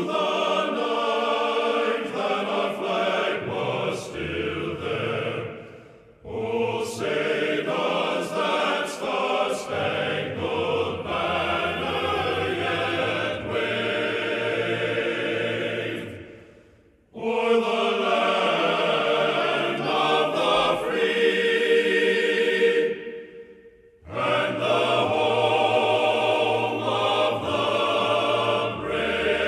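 A choir singing, in long phrases with three short breaks between them.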